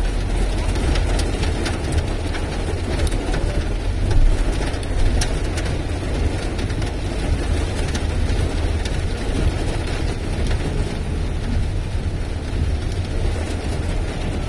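Heavy rain falling on a moving car's roof and windscreen, heard inside the cabin over a steady low rumble of tyres and engine, with scattered sharp ticks of drops.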